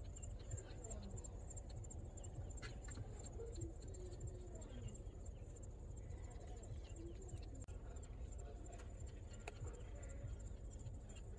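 Faint outdoor ambience: a steady high-pitched insect drone over a low rumble, with a few faint wavering calls and scattered ticks.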